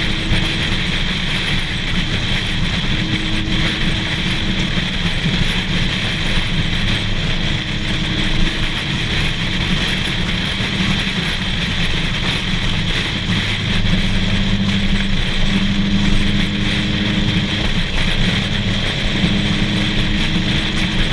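Car driving at a steady cruise: a constant engine drone under heavy wind noise on the microphone and road noise.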